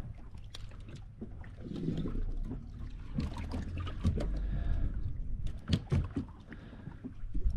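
Deck noise aboard a small boat: a steady low rumble with scattered knocks and clicks, the sounds of gear and a fish being handled on board.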